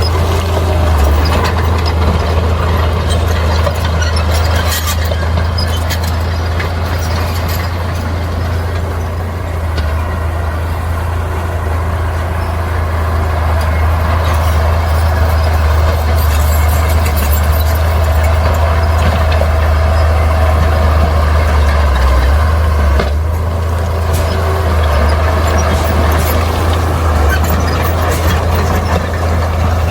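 Bulldozer's diesel engine running steadily under load with a deep, constant hum, with scattered light clanks over it.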